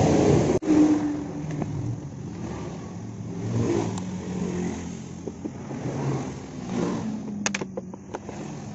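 A motor vehicle engine running with a fluctuating low hum, and a quick cluster of sharp clicks and rattles near the end.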